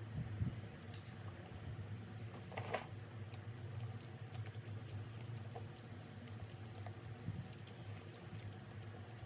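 Light, irregular clicks and taps over a steady low hum, with a short rustling burst about two and a half seconds in.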